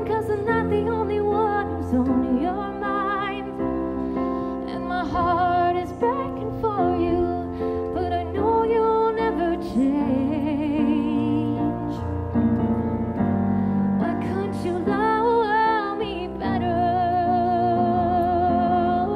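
A woman singing with vibrato to her own accompaniment on a Yamaha electric keyboard playing piano chords. Near the end she holds one long wavering note.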